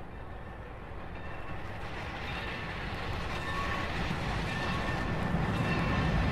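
Norfolk & Western steam locomotive No. 382 approaching, its rumble growing steadily louder, with its bell ringing about once a second from about a second in.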